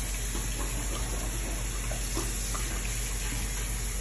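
Steady hiss with a few faint, light clicks as the small metal parts of a flower-link watch bracelet are handled and fitted to the watch case.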